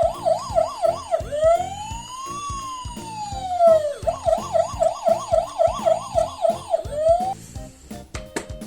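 Electronic police-car siren switching from a fast yelp of about four sweeps a second to a slow wail that rises and falls over nearly three seconds, then back to the fast yelp, with another slow rise starting near the end.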